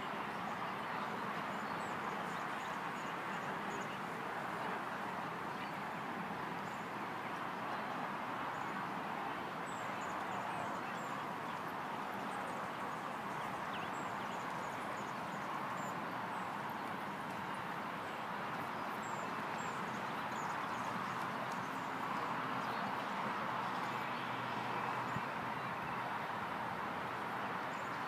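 Steady outdoor background noise with a few faint, short, high bird chirps scattered through it.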